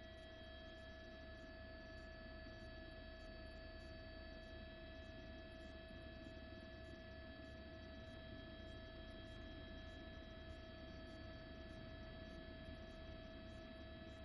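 Near silence with a faint, steady electrical hum made of several unchanging tones.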